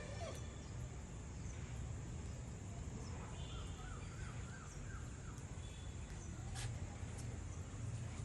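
Steady outdoor background noise with a low rumble, and a bird calling a quick run of short repeated notes about three seconds in.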